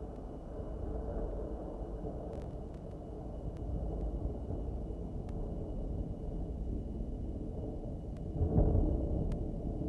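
Rolling thunder: a long, deep rumble that swells about four seconds in and rises to a louder surge near the end.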